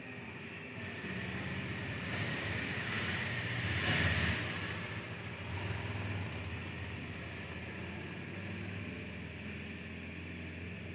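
A motor vehicle passing by: a rushing noise that swells to a peak about four seconds in and then fades, over a low engine hum.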